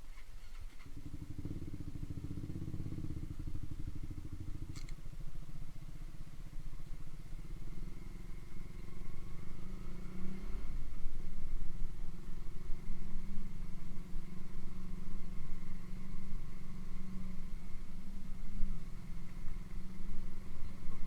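Honda CB150R's single-cylinder engine running through an aftermarket Ronin exhaust, steady at first and then louder from about ten seconds in.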